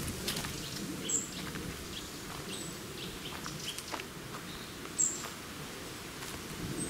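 Footsteps crunching and rustling through dry fallen leaves on a woodland floor, with short high bird chirps a few times, loudest about a second in and about five seconds in.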